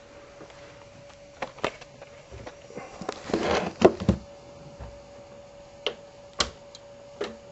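Scattered sharp clicks and knocks and a brief rustle of handling, over a faint steady tone.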